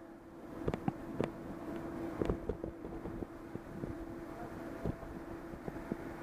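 Wind noise on the microphone of a camera riding down a mountain road on a bicycle, with scattered clicks and knocks from the bike over the road surface and a faint steady hum underneath.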